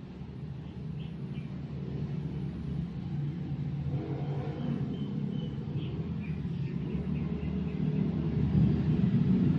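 A low, steady rumble that grows gradually louder, with a few faint, short high chirps over it.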